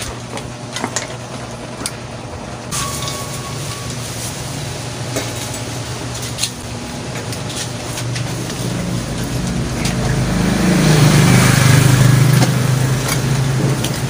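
A motor vehicle's engine passing close by, swelling to its loudest about ten to twelve seconds in and then fading, over a steady low hum. A few light clicks and knocks come from aluminium stand tubes being handled.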